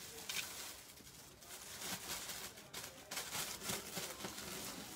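Faint room noise with a few soft rustles and light clicks scattered through it.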